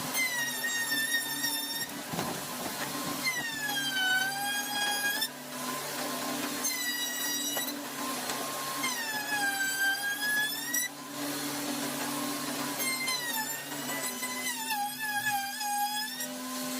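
A small high-speed power tool cutting wood in repeated passes. Its whine drops in pitch as the bit bites and climbs back between cuts, about six times.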